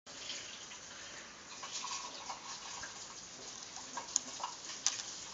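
Gerbil scurrying and scratching in loose wood-shaving bedding, a light patter of small rustles, with two sharp clicks about four and five seconds in.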